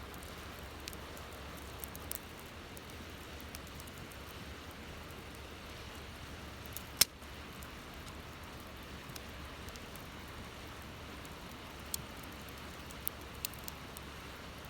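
Campfire burning: a steady hiss with sharp crackles and pops here and there, the loudest pop about halfway through.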